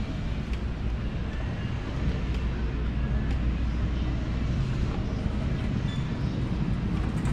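Quickie power wheelchair driving along: a steady low rumble of its drive motors and wheels rolling on the tiled floor, over the general din of the store.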